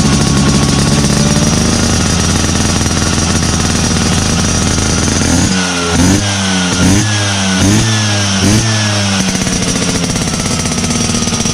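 Two-stroke single-cylinder engine of a 1981 Vespa PX running through an MHR aftermarket under-slung right-side exhaust. It idles steadily, then revs in four quick throttle blips a little past the middle, and settles back to idle.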